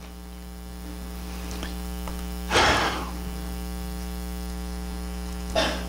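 Steady low electrical mains hum with many overtones, picked up by the recording or sound system, with two short rustling noises: one about two and a half seconds in, and one near the end.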